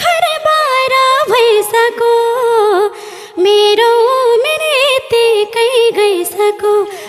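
Nepali live dohori folk music: a high, ornamented melody line with wavering held notes and glides, breaking off briefly about three seconds in.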